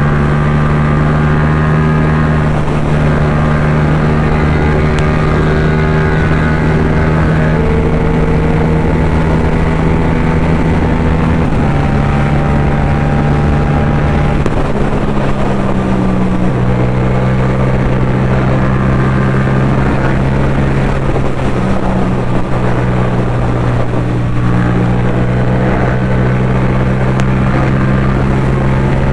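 Yamaha MT-07's 689 cc parallel-twin engine running steadily under way. The engine note dips about eleven seconds in and settles at a slightly different steady pitch around sixteen seconds in.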